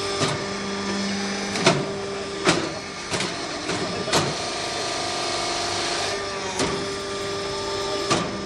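Interlocking (Lego) brick-making machine running: a steady motor hum with sharp knocks at uneven intervals, about seven in all.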